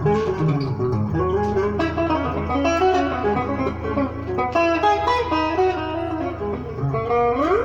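Guitar playing fast sebene-style lead runs of quick plucked notes over a steady low bass note. Near the end it plays a quick upward slide.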